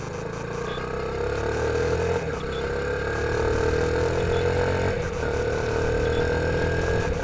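Motorcycle engine accelerating through the gears, its pitch rising steadily, with two brief dips at the gear changes about two and five seconds in.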